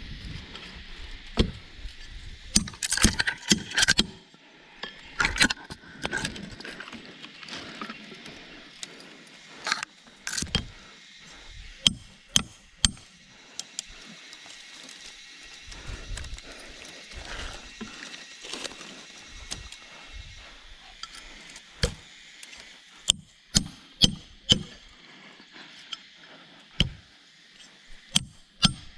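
Irregular sharp knocks and clinks, some in quick clusters, over a faint steady high hiss.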